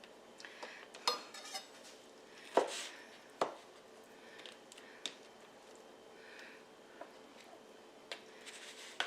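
Dishes and utensils clinking and knocking in a kitchen: about eight scattered sharp knocks and clicks, the loudest a little over two and a half seconds in.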